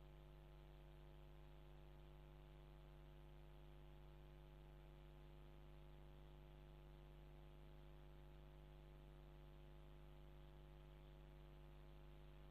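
Near silence with only a faint, steady electrical hum.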